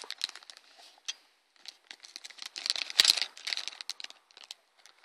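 Clear plastic bag crinkling as it is lifted out of a box and turned over in the hands. The crinkles come in irregular bursts, sparse at first and busiest about three seconds in.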